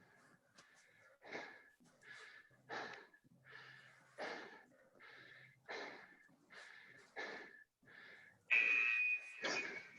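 Heavy, rhythmic breathing of someone exerting hard during burpees, a hard breath about every one and a half seconds, with a louder, wheezy gasp near the end.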